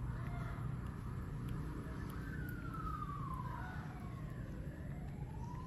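Emergency-vehicle siren wailing, its pitch sliding slowly down over about two seconds, then slowly climbing again toward the end, over a steady low rumble.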